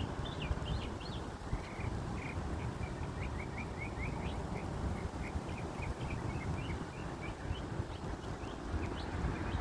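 A songbird singing a long, rapid run of short chirps and warbles over a steady low rumble of city traffic.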